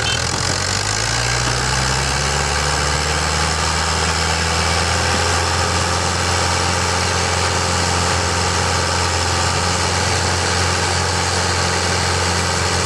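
Fiat tractors' diesel engines running. One revs up over the first two seconds, then both hold a steady speed.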